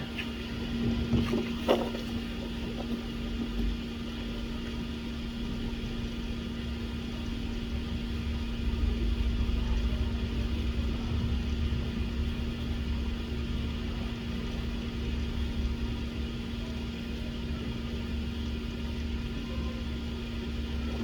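Steady low hum with one constant tone held throughout, like a bench fan or mains-powered equipment running, and a single small click about two seconds in.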